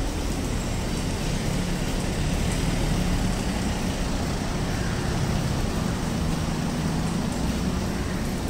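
Steady urban traffic noise with a low hum underneath and no distinct events.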